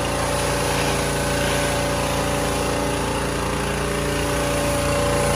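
Pressure washer running steadily, its motor and pump making a constant drone while the wand sprays a hissing jet of water onto a pickup's wheel.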